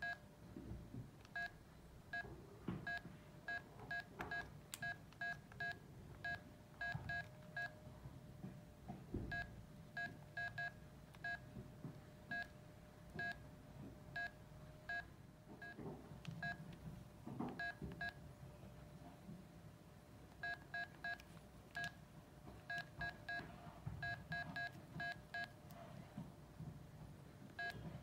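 Nokia 918 keypad key tones: dozens of short, identical electronic beeps as the buttons are pressed, irregularly spaced, with some quick runs of several presses.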